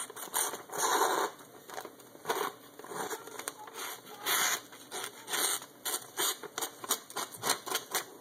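A very sharp handmade knife blade slicing through a glossy paper flyer in an irregular series of short strokes and a few longer cuts, the paper crackling as it is held and turned. The sound is a paper-cutting test of the edge's sharpness.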